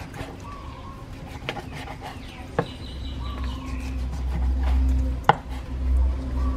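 A knife slicing through raw pork belly on a wooden chopping board, the blade knocking sharply on the board a few times, loudest about five seconds in. A low rumble comes in about halfway.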